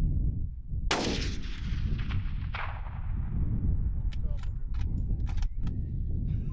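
A single hunting rifle shot about a second in, its report rolling away over a couple of seconds, with a second, fainter crack about a second and a half later. A few sharp clicks follow near the end, over a steady low rumble of wind on the microphone.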